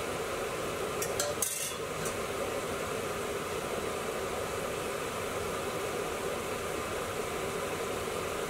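Thick curry gravy simmering and sizzling in a pan on a gas hob, a steady hiss as the base gravy reduces and caramelizes with the oil rising to the top. A few light clicks of the pan or a utensil come at about a second in.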